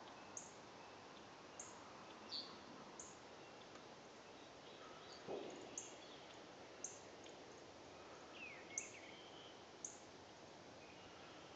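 Faint woodland ambience: short, high bird chirps repeat every second or so, with a few other bird calls, one of them sliding down in pitch about eight seconds in. A soft rustle comes about five seconds in.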